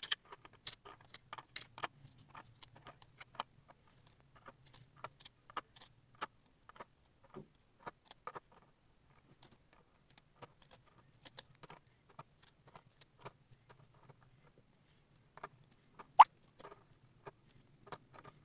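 20-rupee coins clinking as they are set one at a time onto a growing stack on a table: short metallic clicks at irregular spacing, a few a second, with one louder clink near the end.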